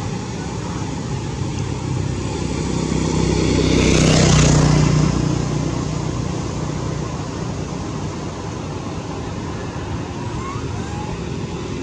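Road traffic noise, with a motor vehicle passing: its engine swells to a peak about four seconds in and fades away.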